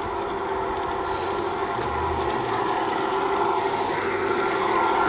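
G-scale model Santa Fe diesel locomotive running along garden railway track with a steady hum, growing gradually louder as it draws nearer.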